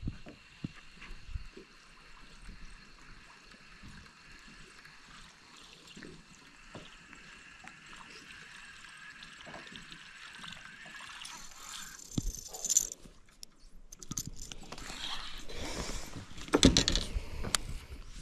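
A buzz bait churning across the lake surface as it is reeled in on a baitcasting reel, with louder splashy, choppy sound over the last few seconds.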